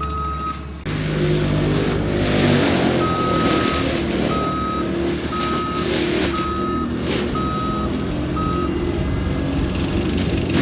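ASV RT-120 tracked skid steer's diesel engine running, jumping louder about a second in, while its reversing alarm beeps steadily about once every 0.7 s until it stops near the end.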